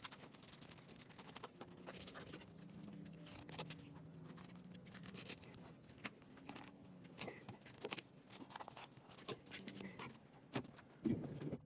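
Fillet knife slicing through a red snapper along its backbone and rib bones: faint, irregular scraping and small clicks as the blade works the fillet free.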